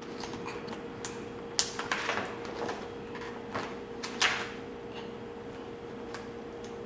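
A few short, raspy screeches from a pet, the loudest about one and a half and four seconds in, over a steady low hum.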